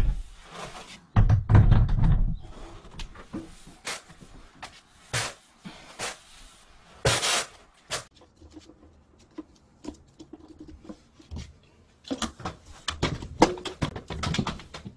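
Handling noises as a 50-litre electric water heater is lifted onto its wall bracket: knocks, scrapes and rustling, with a heavy low thump about one and a half seconds in and another cluster of knocks near the end.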